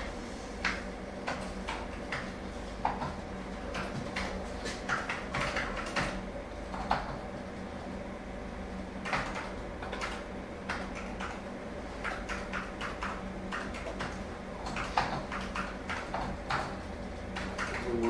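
General indoor school atmosphere: irregular short knocks, clatter and door-like bumps over a steady background hum.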